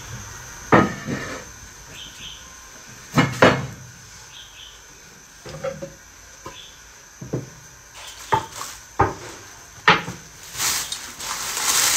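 Kitchen dishes, pots and utensils being handled at the counter: a run of irregular sharp knocks and clinks, the loudest about a second in and around three and a half seconds in, with a rushing hiss near the end.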